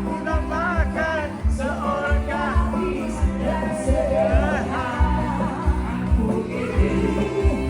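A pop song: a singing voice over a steady drum beat, with a sustained bass underneath.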